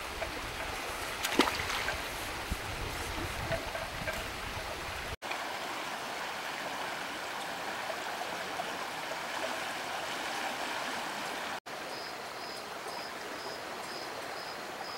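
River water flowing, a steady even rush, with a single light knock about a second and a half in. A faint high chirp repeats about twice a second near the end.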